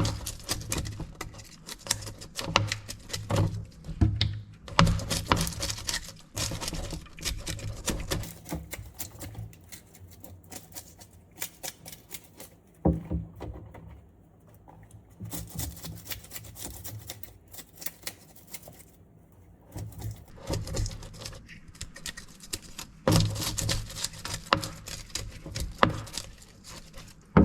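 Knife scraping and cutting on a fish, in runs of rapid ticking scrapes that pause and resume, busiest at the start and again near the end with a quiet patch in the middle.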